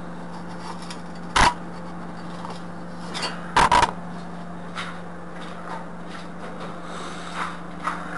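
Handling noises: a sharp knock, then a quick cluster of two or three louder knocks, with scattered fainter clicks and rubbing, over a steady low hum.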